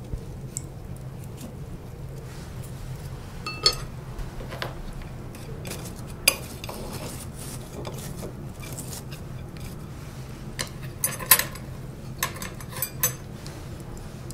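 Scattered sharp clicks and clinks of wooden chopsticks and tableware against the wire grill and ceramic bowls: one early clink rings briefly and a quick cluster comes near the end, over a steady low hum.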